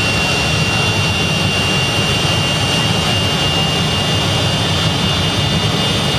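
Jet truck's jet engine running steadily at full blast with its exhaust flame on a car: a loud, even rush with a steady high whine.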